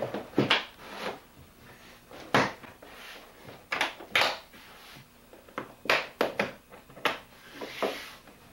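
Hard-shell plastic suitcase being pressed shut and its latches snapped closed: about ten sharp clicks and knocks of plastic on plastic, spread unevenly over several seconds.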